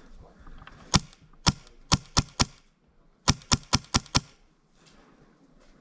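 MTW Wolverine HPA airsoft rifle firing single shots: five sharp cracks about half a second apart, then after a short pause six more in quicker succession.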